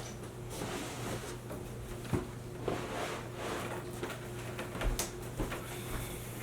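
Packaging being handled during an unboxing: soft rustling with scattered knocks and clicks, three of them sharper, over a steady low hum.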